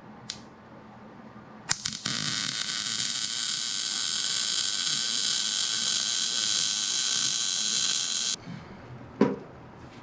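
Wire-feed (MIG) welder arc welding steel, running as one steady continuous bead for about six and a half seconds after a click, then stopping suddenly. A single sharp knock follows about a second later.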